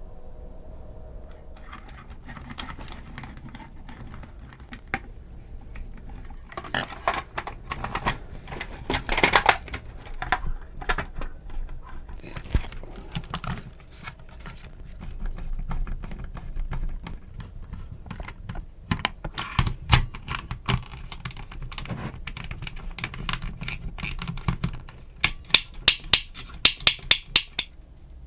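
Small hard objects being handled on a workbench: irregular clicks, taps and rattles, ending in a quick run of sharp clicks.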